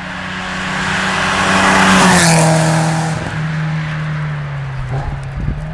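Rally car passing at speed: its engine grows louder up to about two seconds in, drops sharply in pitch as it goes by, then fades as it draws away.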